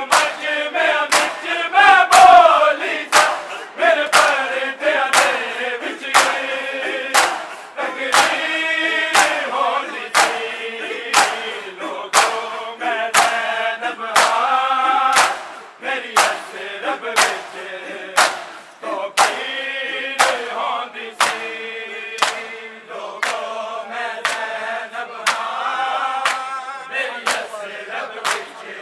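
Men's voices chanting a noha (mourning lament) in unison while a crowd of bare-chested mourners beats their chests together in matam, the hand-on-chest slaps landing in a steady rhythm about twice a second.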